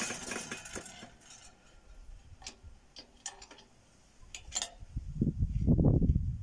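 Scattered sharp metallic clicks and clinks from hand work on a hay tedder's steel frame and fittings. They come one at a time, a handful over a couple of seconds, after a brief rustle at the start. A louder low rumbling sound comes near the end.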